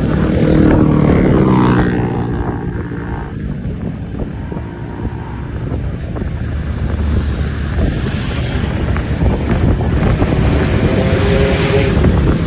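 Road traffic noise with heavy wind buffeting the microphone while moving along the road. A pitched tone with overtones sounds over it in the first couple of seconds and faintly again near the end.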